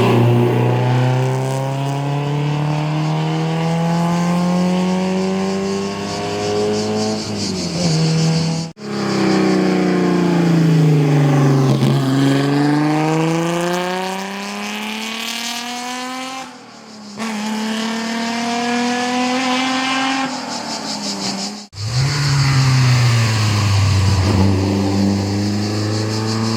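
Historic racing car engines at full throttle, in three separate clips. Each engine's pitch climbs steadily as it pulls through a gear; in the middle clip the pitch falls and then climbs again, as the car slows and accelerates away.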